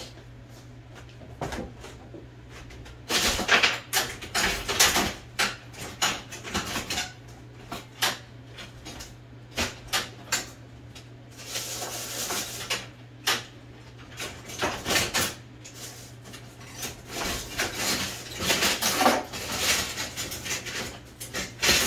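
Small metal parts clinking and clattering by hand, in irregular clicks and short rattles, as spare typewriter gears are sorted through and handled. A steady low hum runs underneath.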